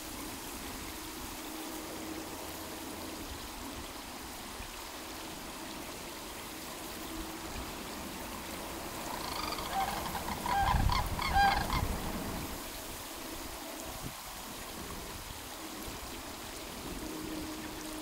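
A short series of honking waterfowl calls, several notes over about two seconds near the middle, with a low rumble at the same time, over a steady faint background hiss.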